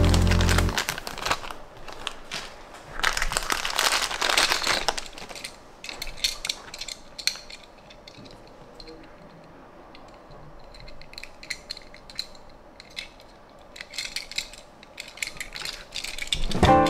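Thin clear plastic bag crinkling as a die-cast toy car is pulled out of it, then scattered small clicks and taps as the car is handled.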